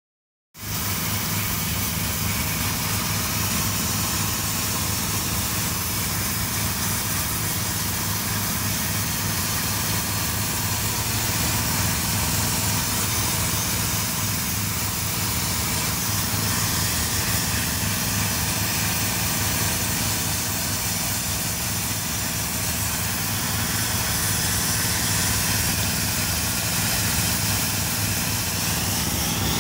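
High-pressure steam lance jetting onto a sandstone wall to strip algae: a steady hiss of the steam jet over the constant low hum of the steam cleaner's engine-driven pump.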